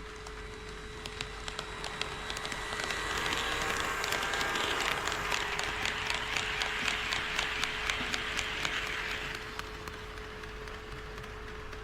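HO scale model train running past on KATO Unitrack. Its running noise rises, holds for several seconds and fades away, with the wheels clicking over the rail joints about three times a second.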